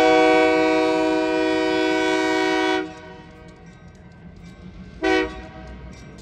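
Locomotive multi-chime air horn sounding at a grade crossing: one long blast of nearly three seconds, then a short blast about two seconds later, part of the long-long-short-long crossing signal. A low steady rumble lies underneath.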